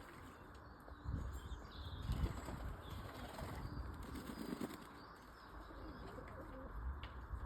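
Pigeons flapping their wings in several short bursts, with a few faint bird chirps.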